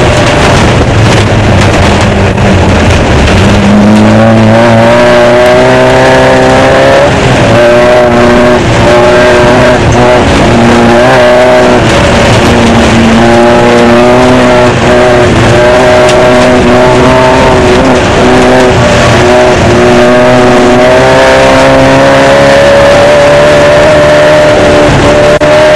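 Off-road desert race car engine heard loud from an onboard microphone, its revs rising and falling again and again under throttle and gear changes, over a constant rush of tyre, gravel and wind noise.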